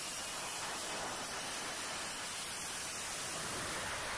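F-35B's F135 jet engine running at high power for a short takeoff, heard as a steady hiss-like rush of noise with no change in pitch.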